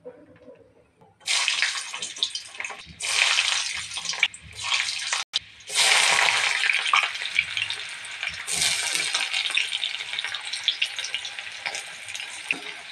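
Chopped and grated onion sizzling in hot oil in a kadhai: a loud, dense sizzle that starts about a second in and breaks off briefly a few times before settling into a steady fry.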